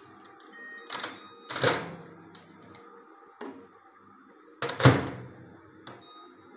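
Microwave oven being loaded: a few clicks and knocks as the door is opened and a plastic bowl is set inside, then a loud thump about five seconds in as the door is pushed shut.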